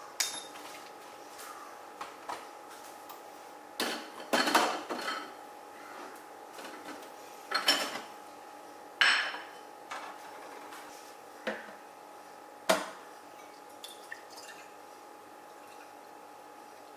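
Coffee-making gear being handled: a ceramic cup and milk pitcher clinking and knocking against the espresso machine and countertop in scattered sharp knocks, loudest about four, nine and thirteen seconds in, over a faint steady hum.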